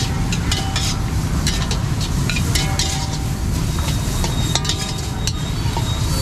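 Fried rice being stir-fried in steel woks over gas burners: metal spatulas and ladles scrape and clank irregularly against the pans, some strikes ringing briefly, over a steady sizzle and the constant low roar of the burner flames.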